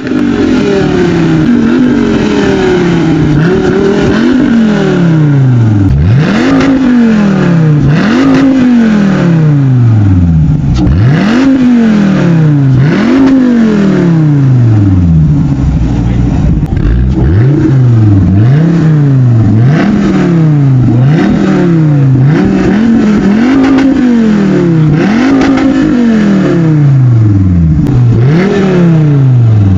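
Dodge Viper V10 engine being revved over and over: each throttle blip snaps the pitch up, then it falls back slowly toward idle, about once every second and a half.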